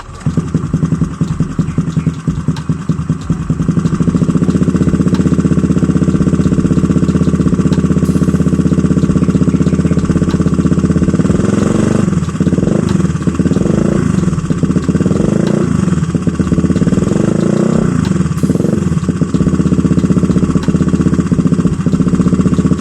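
Honda Vario 125 scooter engine running through an ABF Racing BLT 30 cm aftermarket racing silencer, idling steadily and then blipped several times from about halfway through.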